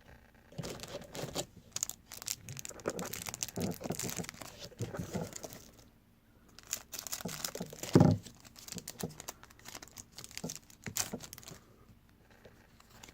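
Trading cards and their foil pack wrapper being handled: irregular crinkling and rustling in two stretches with a short pause between, and one louder knock about eight seconds in.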